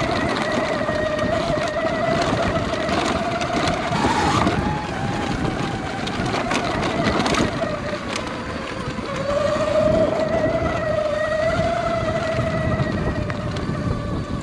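Sur Ron Light Bee X electric dirt bike's motor and chain drive whining as it rides a rough dirt trail. The pitch sags around the middle, climbs again about two-thirds of the way in and eases near the end. Rushing noise and knocks from the bumps run underneath.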